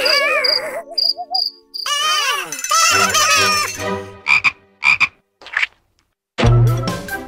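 Cartoon soundtrack: a wobbling warble tone over quick high beeps, then the cartoon characters' gliding, croaky gibberish vocal noises and a few short blips. After a brief silence, music with a heavy bass comes in near the end.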